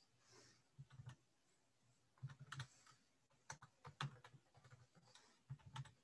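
Faint computer keyboard typing: short runs of keystrokes with pauses between them.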